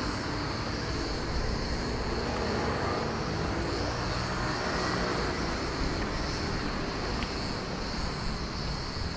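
Steady outdoor engine rumble, a distant vehicle or aircraft, with a constant high hiss above it.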